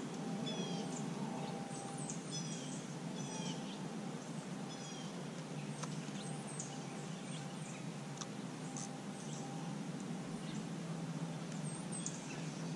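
Small birds chirping: quick runs of short, high, falling notes in the first few seconds, then scattered single chirps, over a steady low outdoor background hum.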